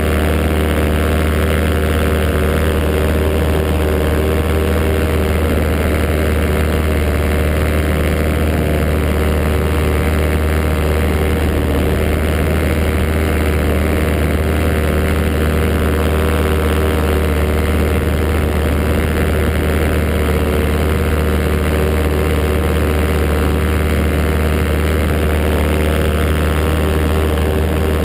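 Paramotor engine and propeller running at a steady cruise setting in flight, a constant loud drone with no change in pitch.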